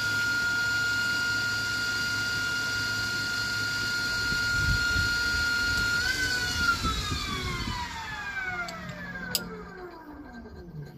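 Narrowboat's electric drive motor, running unloaded with its drive shaft disconnected, gives a high steady whine at a constant throttle setting. About six seconds in the throttle is eased back to neutral and the whine falls steadily in pitch as the motor spins down.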